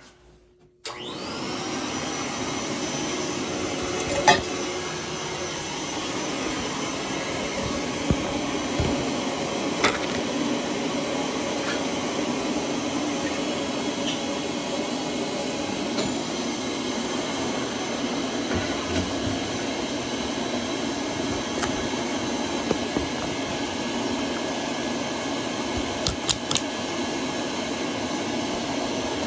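A vacuum cleaner switching on about a second in, its motor whine rising as it spins up, then running steadily while the boiler's burners are vacuumed clean of soot. A few sharp knocks and clicks come from the nozzle striking the burner parts.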